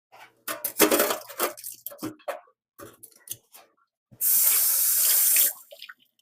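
Water splashing in a sink with irregular knocks as vegetables are rinsed by hand, then a tap running in a steady stream for about a second and a half before it is shut off suddenly.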